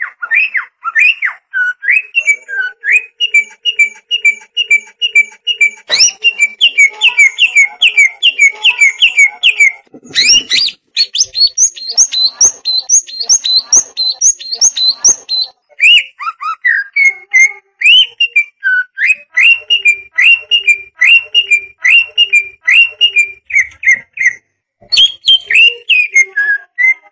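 Male green leafbird (cucak ijo) singing: unbroken runs of quick, clear whistled notes, several a second, switching to a new repeated note every few seconds. A single low thump comes about ten seconds in.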